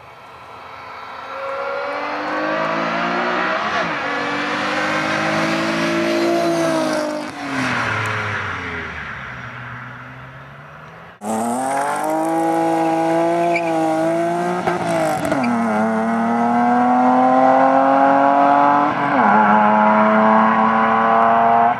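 Ford Probe GT exhaust under hard acceleration: a car climbs in pitch as it approaches, drops in pitch as it passes, and fades away. Then, abruptly, another run: a Probe GT pulls away hard through the gears, its pitch climbing and falling back at two upshifts.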